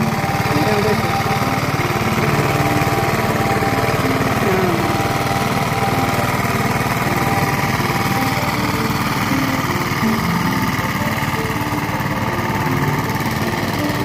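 Engine of a rice combine harvester running steadily under load as it cuts and threshes the crop.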